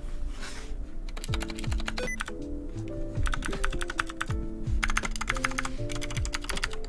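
Fast flurries of typing on a 60% mechanical keyboard with clicky blue switches, several bursts of rapid clicks broken by short pauses. Background music with a beat plays throughout.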